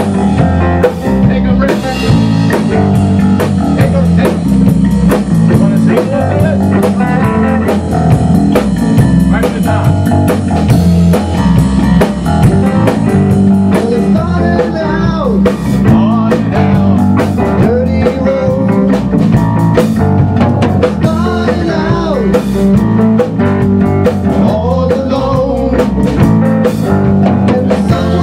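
A live rock band playing a bluesy rock groove: electric guitar, electric bass and a Tama drum kit together.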